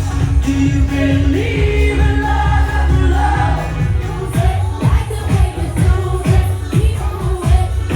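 Pop song with a sung vocal over a steady beat and heavy bass.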